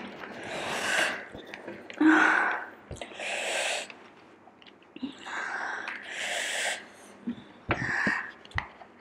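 A person breathing hard through the mouth in about half a dozen sharp, hissing breaths, a second or so apart. These are the pained breaths of someone whose mouth is burning from an extremely hot chili chip.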